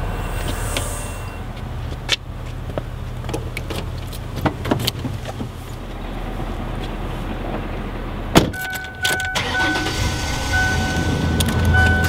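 Knocks and clunks of a Ford Explorer's door as someone climbs in. About eight seconds in, the car's dashboard warning chime starts, a steady tone with repeating brighter pulses, and the engine runs low under it near the end.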